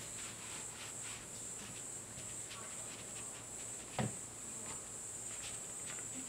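Quiet room tone with a steady high hiss and faint scattered ticks, broken by one sharp tap about four seconds in.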